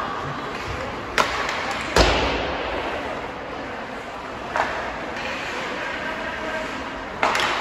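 Sharp cracks of hockey stick and puck echoing in an ice rink, four in all, the loudest about two seconds in with a low thud, over faint background voices.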